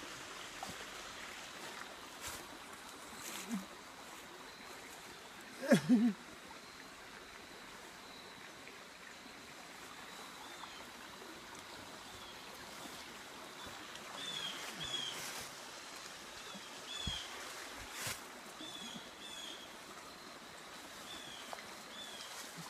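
Steady rush of a woodland stream, with a small bird chirping again and again through the second half. About six seconds in, a person gives one short, loud vocal sound.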